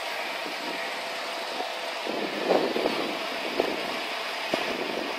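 A heavy vehicle engine running steadily. It gets louder and busier about halfway through, with a couple of short sharp knocks later on.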